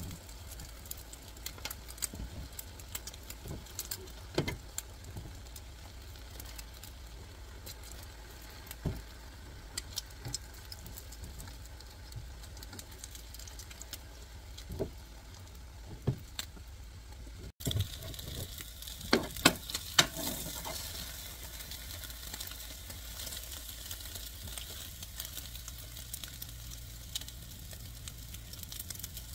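Egg mixture frying in a nonstick pan with a soft, steady sizzle for a Korean rolled omelette, with scattered light clicks. After about two-thirds, a cluster of sharper taps as a fork and a spatula knock against the pan while turning the rolled omelette.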